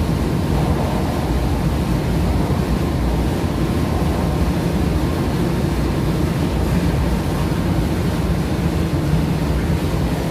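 Steady, loud drone of water filter plant machinery: an even rumble, deepest at the low end, that holds without change.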